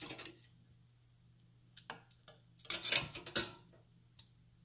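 Kitchen tongs clicking and knocking against a ceramic bowl as an egg is set down in cold water: a few sharp clicks about two seconds in, a short louder clatter about three seconds in, and one more click near the end. A faint steady low hum sits underneath.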